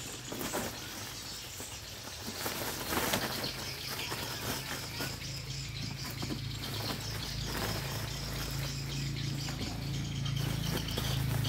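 Woven plastic sack rustling and crinkling as it is pulled out, opened and filled with hands of green bananas, over a low steady hum.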